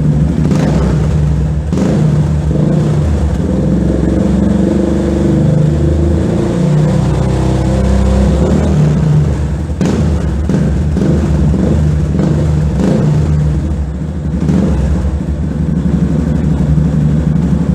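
Yamaha Fazer 250's single-cylinder engine running through an aftermarket Jeskap sport exhaust, its revs rising and falling a few times.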